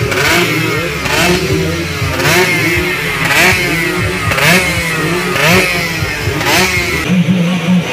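Two-stroke 125 cc racing motorcycle engine revved in repeated blips, about one a second, its pitch rising sharply and falling back each time.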